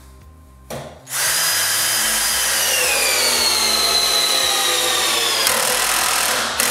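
Total TDLI2002E 20 V cordless drill/driver driving a 6 x 160 mm wood screw into a timber beam: the motor whines at speed, then its pitch falls as it slows under the growing load of the long screw. The sound changes shortly before it stops, as the torque clutch kicks in.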